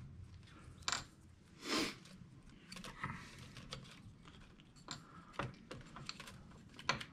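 Faint, scattered light clicks and a soft swish of hands test-fitting a cylinder base gasket down over the pistons of a snowmobile engine.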